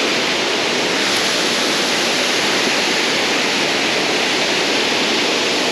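Water rushing over a dam spillway: a steady, even rush.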